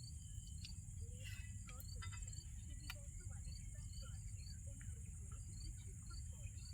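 Crickets chirring in a steady high-pitched chorus, with a shorter chirp repeating about twice a second.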